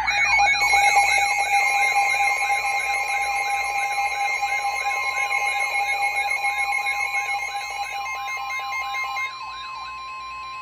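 Weather radio warning alarm: a rapidly repeating falling siren-like sweep, about three a second, over steady electronic tones. A second steady tone, the NOAA Weather Radio 1050 Hz warning alarm tone, joins about a second and a half in and is left sounding alone after the sweeps stop near the end. The alarm signals a severe thunderstorm warning being issued.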